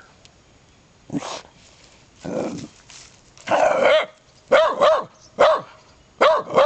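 Small terrier barking at an echidna it has cornered: a few scattered sounds in the first half, then a run of short, sharp barks, about two a second, from about halfway through.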